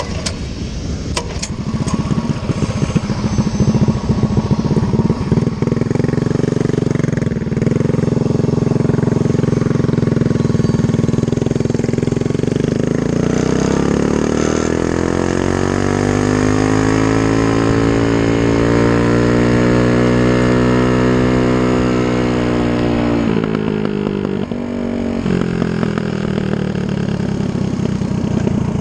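A mini bike's stage 3 Predator 212 single-cylinder engine running hard under the rider at speed. Its pitch holds steady at first, climbs smoothly through the middle and holds high, then drops sharply as the throttle is let off, and runs lower near the end.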